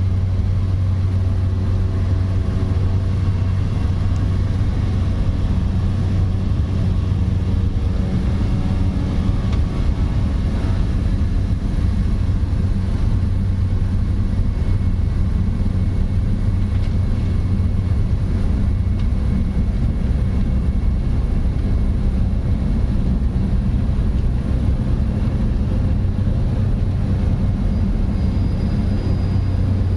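Inside the cabin of a small propeller plane in flight: the engine and propeller give a loud, steady drone, a deep hum with higher tones over a constant rush of noise.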